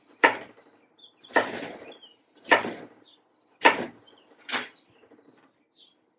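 Chef's knife cutting sweet potato slices into sticks, each stroke ending in a sharp knock on the cutting board: five chops about a second apart. A high, pulsing chirp sounds faintly in the background.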